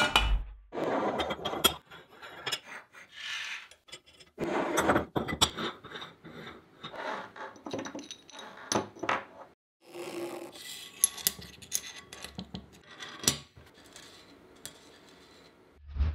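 Small steel drill press vise parts clinking, scraping and rubbing as they are handled and worked on: irregular sharp clicks broken by stretches of scraping, opening with a dull thump.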